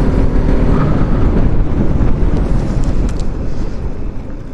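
Motorcycle engine running as the bike rides along, mixed with heavy wind rumble on the microphone. The sound eases off toward the end as the bike slows.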